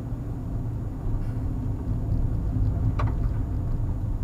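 A car driving, heard from inside the cabin: steady low engine and road rumble, a little louder after about a second. A brief high squeak comes about three seconds in.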